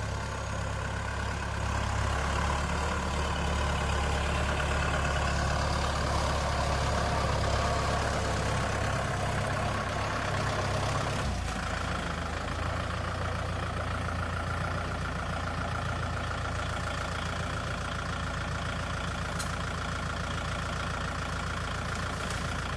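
Heavy diesel engine running steadily; its low note shifts about eleven seconds in, then holds steady again.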